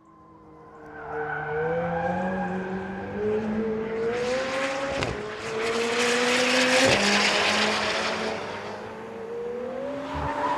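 McLaren 720S twin-turbo V8 accelerating through the gears as it fades in: the engine note climbs and is broken by two sharp shift cracks about five and seven seconds in. A loud hiss rises over it in the middle.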